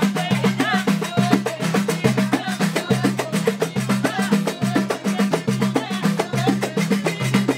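A women's wedding troupe singing together over a fast, steady rhythm of hand drums: a goblet drum (darbuka) and frame drums, with hand-clapping.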